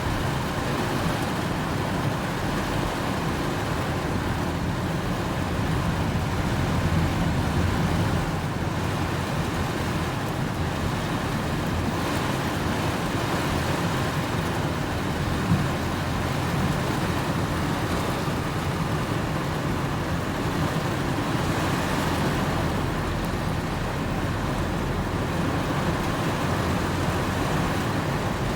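Heavy rain pouring steadily, a dense unbroken hiss and patter, with one sharp tap about halfway through.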